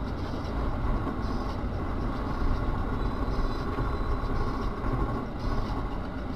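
Steady rumble of a moving vehicle with road noise, with a faint steady whine through the middle.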